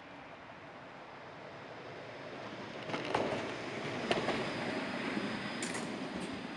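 Electric tram running past on its rails: a rumble that swells about two seconds in, with two sharp wheel clacks about a second apart and a brief high-pitched sound near the end.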